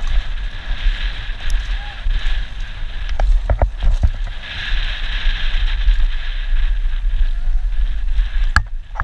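Wind buffeting the helmet-mounted camera's microphone during a fast downhill mountain-bike descent, over a rumble of tyres and bike chatter on the dirt trail. Sharp knocks from bumps come about three and a half, four and eight and a half seconds in.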